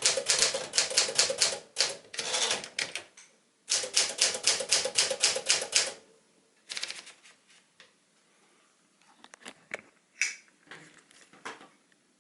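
Sears Tower Commander manual typewriter (a reskinned Smith-Corona Sterling) being typed on: rapid key strikes at about five a second, broken by a short pause about three seconds in. The typing stops about six seconds in, leaving a few scattered, quieter clicks and knocks from the machine.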